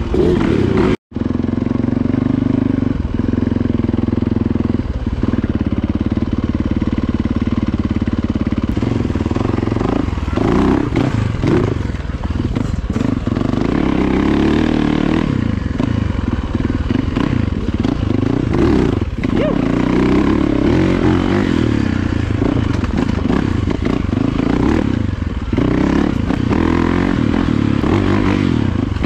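Yamaha YZ450FX four-stroke dirt bike engine being ridden along a dusty forest trail, its pitch rising and falling with the throttle. Knocks and clatter from the bike over rough ground come in from about ten seconds on. The sound cuts out for an instant about a second in.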